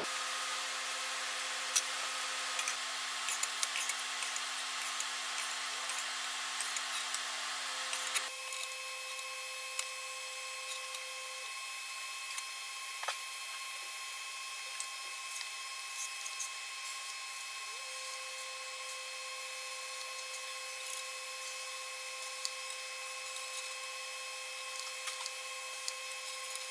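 Steady shop hum with a faint whine, broken by scattered light clicks and taps from stainless steel flat bars and tape being handled on a steel table. The clicks are frequent at first; about eight seconds in the sound changes abruptly and the taps thin out.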